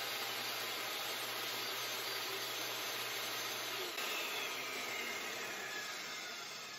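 Table saw running as a plywood disc is turned against the blade, its edge being trimmed round. About four seconds in the saw is switched off and the blade winds down with a falling whine, fading away.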